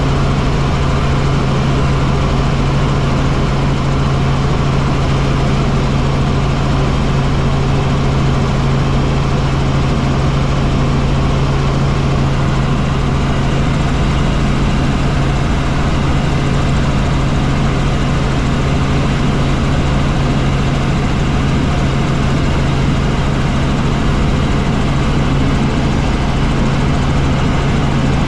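Helicopter in flight: the steady drone of its engine and rotors, with a strong, even low hum.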